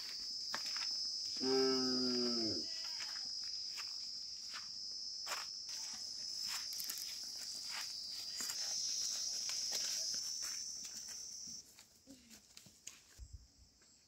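An ox moos once, about a second and a half in, a single low call lasting about a second. Underneath, a steady high-pitched insect buzz runs until it stops a couple of seconds before the end, with light scattered footsteps on a dirt path.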